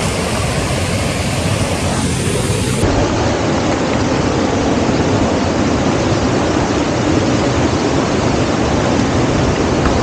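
Steady rushing of a fast-flowing, muddy stream, a continuous hiss and roar of water that gets a little louder about three seconds in.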